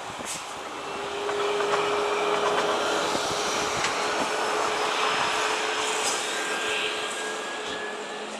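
Turbofan engines of a Boeing 737 on final approach: a steady rushing whine that swells about a second in and stays loud.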